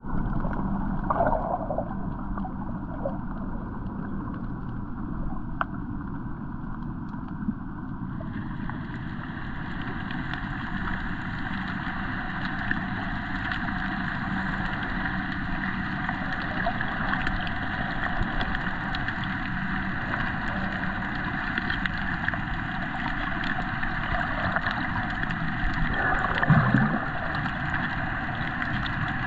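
Muffled underwater ambience picked up by a submerged camera: a steady wash of water noise with a faint low steady hum and scattered small clicks, and a brief louder gurgle near the end.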